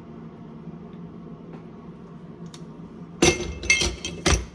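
Kitchen dishware clinking: three sharp knocks of glass or a utensil against a bowl in quick succession near the end, over a faint steady hum.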